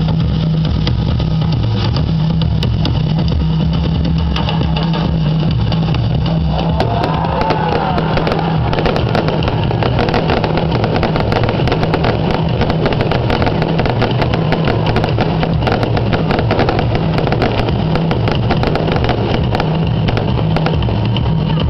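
Aerial fireworks bursting overhead: a continuous heavy low rumble of booms with dense crackling throughout, and a few short whistling glides about seven seconds in.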